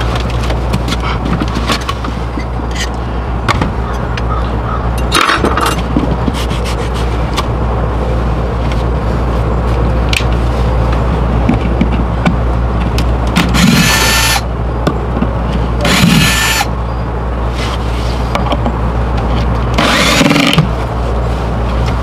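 Cordless drill-driver backing screws out of wooden deck boards in short runs: a brief one about five seconds in, then three longer ones near 13, 16 and 20 seconds. A steady low hum runs underneath.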